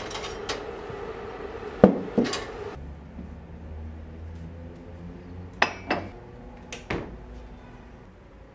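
Dishes and glassware clinking as they are set down in a wire dish rack: a loud pair of clinks about two seconds in, then two more pairs near the middle, each ringing briefly. A soft hiss underneath stops about three seconds in.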